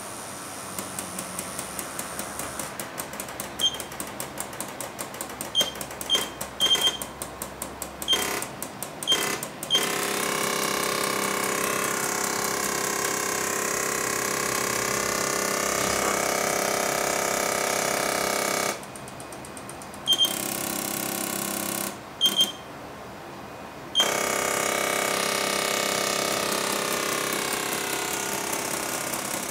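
Pneumatic robot arm's air valves and actuators working as the arm moves a heavy weight at its tip: rapid clicking for the first ten seconds or so, then a steady hissing hum of air with a whining tone that cuts out briefly twice.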